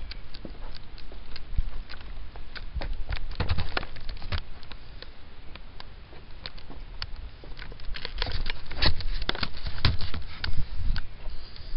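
Footsteps crunching along a nature trail: irregular crackles and snaps with low thumps, thickest about three to four seconds in and again from about eight seconds in.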